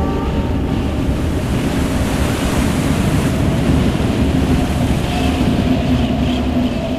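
Steady rushing noise of sea surf. About five seconds in, a low held drone note enters beneath it.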